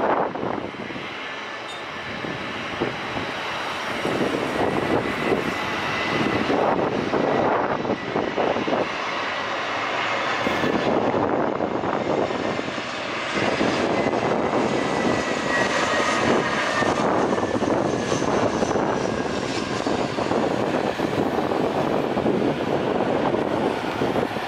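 Jet engines of a Batik Air Airbus A320 landing: a steady, loud rushing noise as it passes low on final approach and rolls out on the runway, with a thin whine that slides slowly down in pitch partway through.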